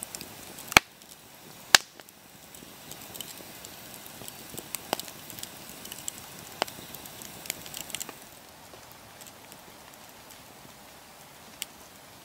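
Wood campfire crackling and popping: two sharp, loud pops in the first two seconds, a busy run of small crackles in the middle, then only the odd pop.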